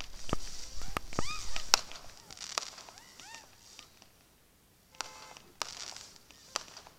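Fireworks bursting in the distance: a string of sharp bangs at uneven intervals, over a low rumble in the first couple of seconds. Short chirping pitch glides come between the bangs, about a second in and again near the middle, with a lull before the last few bangs.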